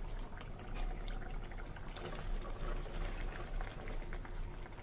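Thick spiced oil and tamarind masala bubbling with a faint crackle in an aluminium karahi, stirred with a wooden spatula as green chillies are tipped in.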